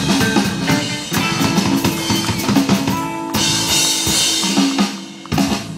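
Live rockabilly band of electric guitar, upright double bass and drum kit playing the instrumental ending of a song. A cymbal wash rings out about three seconds in, a last sharp hit comes just before the end, and the music then dies away.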